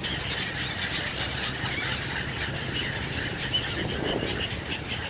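A flock of migratory birds calling, many short overlapping calls at once, over a steady low hum.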